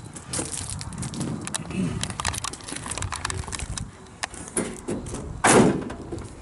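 Scattered clicks, scuffs and crunches of a person moving on gravel and handling a tractor's front end, then a short loud clunk about five and a half seconds in as the Kubota M6060's hood is pushed shut and latches onto the grill guard.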